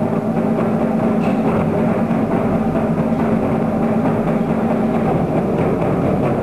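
Ensemble of large red barrel drums played together in a fast, dense, continuous rhythm, with a steady ringing tone running underneath.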